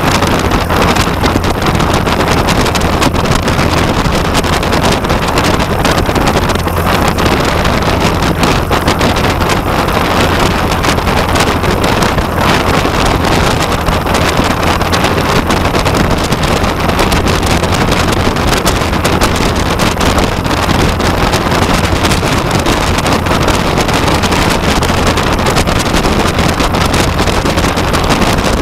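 Aeronca Chief light plane's piston engine and propeller running steadily as the plane taxis, with wind noise rushing across the fuselage-mounted camera's microphone.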